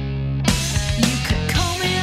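Rock music with electric guitar: a held chord, then drums and the full band come in suddenly about half a second in, with sliding guitar notes.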